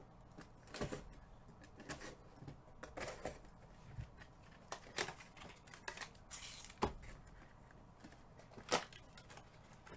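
Faint, irregular clicks and rustles of small things being handled, with a few sharper ticks; the loudest comes near the end.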